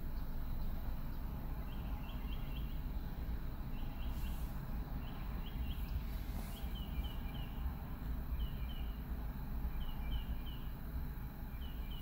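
Repeated high chirps in quick runs of three or four, coming about once a second, over a steady low rumble.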